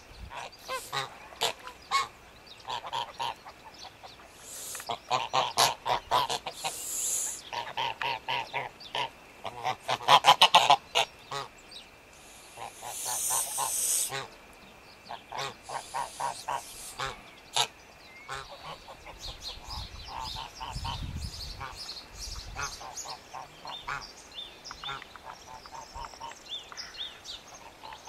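A flock of domestic geese honking, with many repeated calls coming in bouts, the loudest about ten seconds in.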